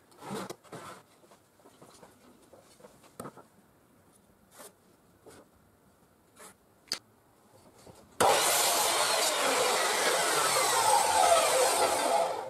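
Faint taps and scrapes of a square and pencil being set on a board, then about eight seconds in an electric mitre saw starts abruptly and runs loudly for about four seconds, stopping sharply near the end.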